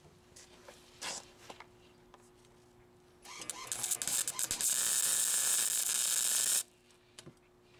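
Flux-core wire-feed welder arc crackling as a bead is run on a sleeved steel exhaust pipe joint. The arc strikes about three seconds in, builds, runs for about three seconds and cuts off sharply. Before it there are only faint clicks and a steady low hum.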